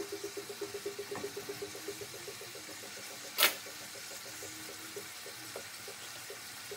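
Boneless chicken breasts sizzling quietly as they sear in olive oil in a stainless skillet. A faint rapid pulsing hum fades out over the first few seconds, and there is a single sharp click about three and a half seconds in.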